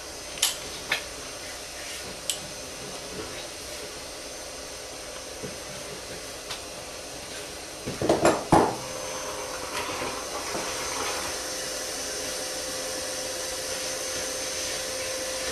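Metallic clinks and knocks of a tool working on the oil filter as it is loosened: a few sharp clinks near the start and a quick cluster of louder knocks about eight seconds in. A steady hiss with a faint hum comes in after the knocks.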